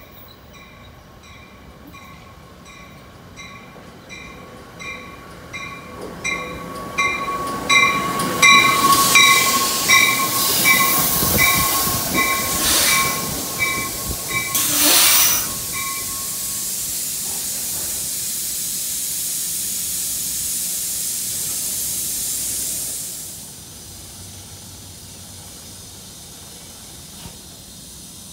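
NJ Transit commuter train of Comet coaches, pushed by an ALP-45DP locomotive, pulling into the station and braking to a stop, its bell ringing about twice a second as it comes in. Wheel and brake noise builds as it arrives, two sharp blasts of air come near the middle, and a steady air hiss follows that cuts off suddenly.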